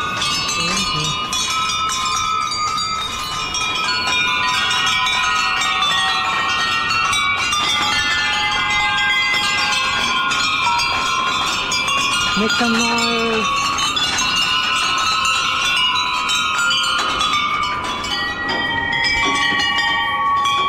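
Many hanging temple bells rung by hand one after another, their overlapping tones making a continuous ringing.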